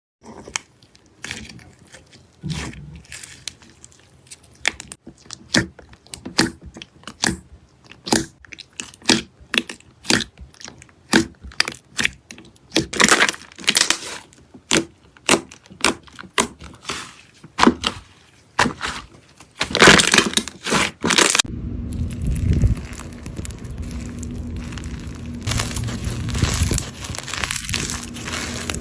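Slime being squeezed and poked by hand, making a run of sharp, irregular clicks and pops. About two thirds of the way through it changes to a steadier, softer squishing with a faint low hum underneath.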